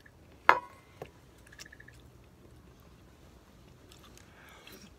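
A sharp clink of tableware about half a second in, with a brief ring, then a lighter tap, and quiet chewing.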